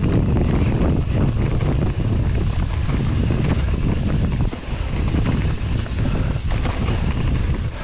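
Mountain bike rolling down a dirt forest trail: steady wind buffeting on the bike-mounted camera's microphone over the tyres' rumble and the bike's rattling over bumps.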